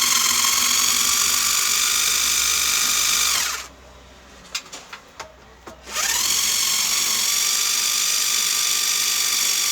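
Electric drill-driver run twice, a few seconds apart, backing out screws. Each run spins up with a rising whine, holds steady, then winds down, with small clicks between the runs.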